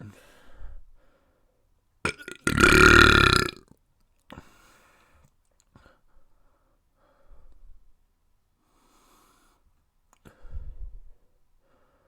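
A person burping: one loud, drawn-out belch lasting about a second, starting about two and a half seconds in, with a few quieter short sounds around it.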